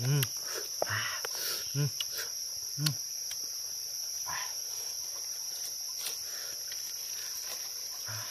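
Steady high drone of crickets or similar insects. A few short, low calls sound about once a second in the first three seconds, with a few faint clicks.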